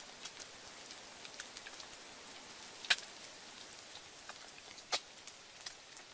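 Whole boiled eggs frying in hot oil in a wok: a steady sizzle with scattered spattering pops, two of them louder, about three and five seconds in.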